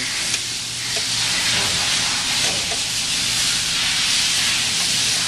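Steady, loud rushing hiss with a low hum underneath: workshop background noise.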